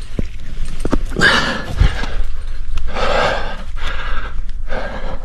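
A climber's hard, rhythmic breathing, loud and close, in heavy exhalations every second or so while working through a crux, with a few sharp clicks.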